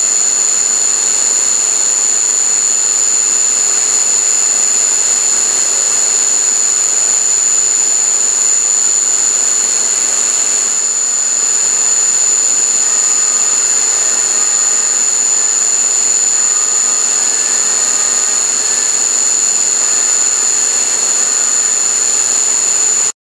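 CNC mill spindle running at high speed with a small end mill cutting a selector-lever blank: a loud, steady, high-pitched whine over cutting noise.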